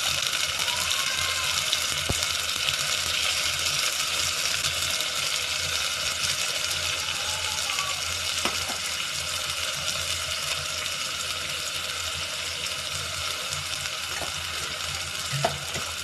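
Freshly added coconut, coriander, ginger and garlic paste frying in hot oil with browned onions in an aluminium pot: a steady sizzle that slowly grows quieter, with a few faint clicks.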